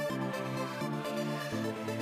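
Electronic background music with steady synthesizer chords that change at about a second and again near the end.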